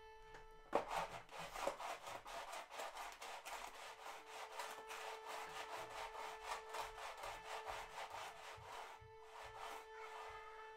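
Rapid back-and-forth scraping, like something rough rubbed against wood, in quick even strokes that start about a second in and stop near the end, standing in for the moose rubbing against trees. A steady held musical note sounds underneath.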